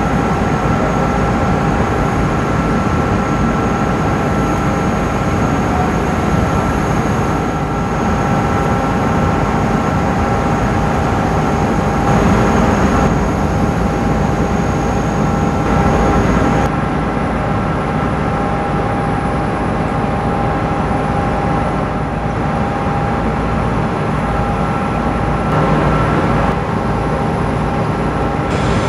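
Emirates airliner's jet engines running, a loud steady rush of noise with several steady whining tones over it; the highest whine stops about halfway through.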